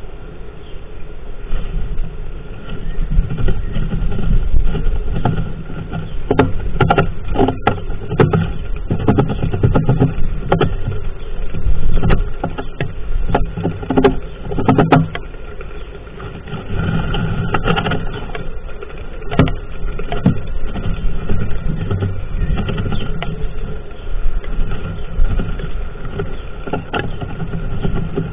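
Irregular scratching, rustling and clicking of dry grass nest material inside a nest box over a steady low rumble, busiest in the middle stretch.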